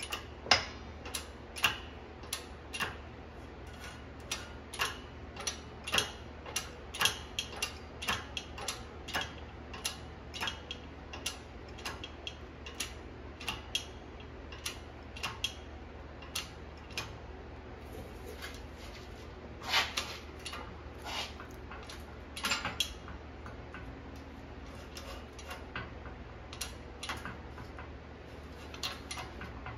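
Hydraulic bottle-jack shop press pressing a tapered roller carrier bearing onto a Dana 30 locker carrier: a run of sharp, irregular clicks, one or two a second, with a couple of louder ones near the two-thirds mark, over a steady low hum.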